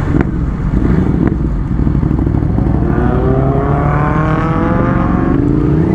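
Motorcycle engine accelerating over a steady low rumble. Its pitch climbs steadily from about halfway through, then drops near the end.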